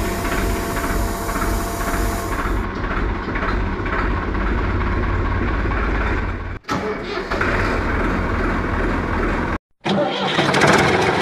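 Tractor engine sound effect running steadily with a regular chug. It drops out abruptly twice for a moment where the soundtrack is cut.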